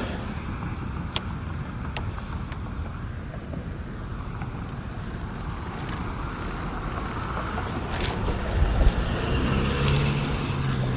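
Steady road traffic noise with wind on the microphone, a few sharp clicks, and a low vehicle engine hum that comes in near the end.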